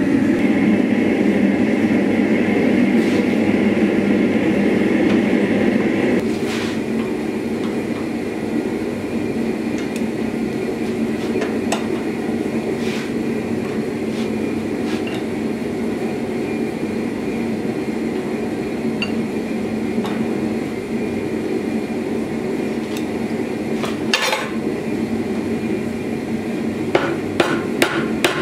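Gas forge running with a steady rushing noise that drops to a lower background rush after about six seconds, with a few scattered metal clinks. Near the end, a quick series of hammer blows, about two to three a second, on red-hot steel clamped in a vise.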